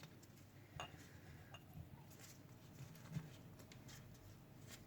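Near silence with a few faint, light clicks and taps as red onion rings are handled and laid into a jar.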